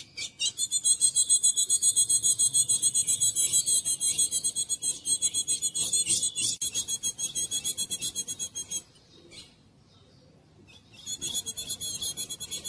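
Female ultramarine grosbeak (azulão) calling: a high, fast-pulsed chatter of many rapid notes. It breaks off for about two seconds near two-thirds of the way through, then starts again.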